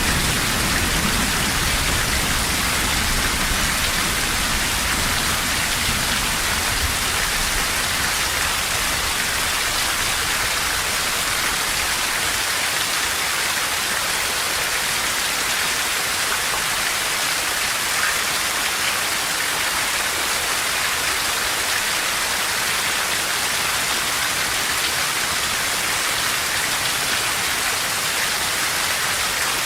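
Steady heavy rain, with a low rumble of thunder dying away over the first few seconds.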